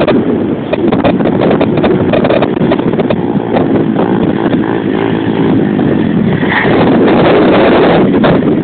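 125cc pit bike engine revving up and down as it is ridden, heard through heavy wind buffeting on the microphone.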